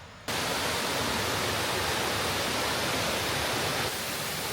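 Waterfall: a steady, dense rush of falling water that starts suddenly just after the beginning and holds steady.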